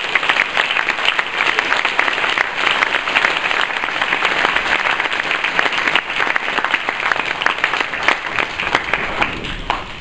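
Audience applauding: many hands clapping in a dense, steady patter that eases off near the end.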